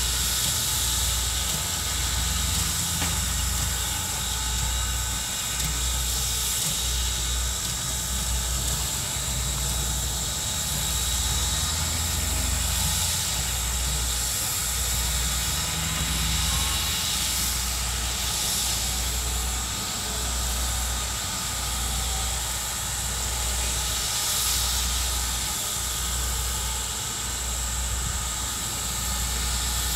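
Steam locomotive standing with steam hissing steadily, over a low, uneven pulsing.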